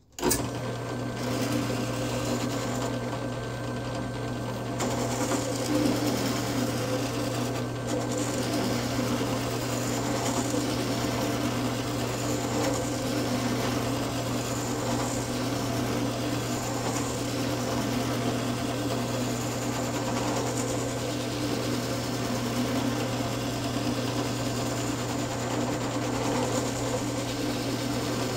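Drill press motor switched on just as the sound begins, then running steadily with a small sanding drum in the chuck, sanding the face of a plywood block pushed sideways against it: a constant motor hum under a steady sanding noise.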